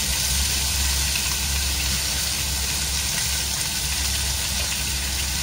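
Fish pieces frying in a little oil in a nonstick wok, with a steady sizzle over a constant low hum.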